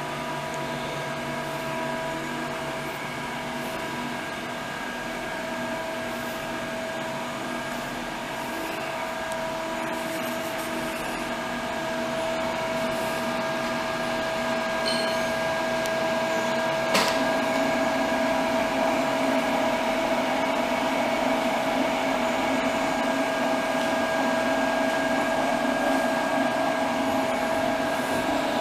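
Morton 830 PCB preheater running: a steady whir of its fans and motors with a constant hum tone, getting louder partway through. A single sharp click comes about two-thirds of the way in.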